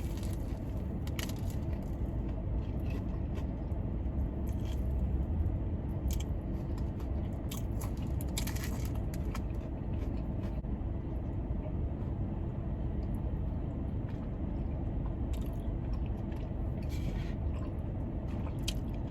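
Close-up eating sounds, scattered bites and chewing with a few sharper crunchy clicks, over the steady hum of a car's air-conditioning blower.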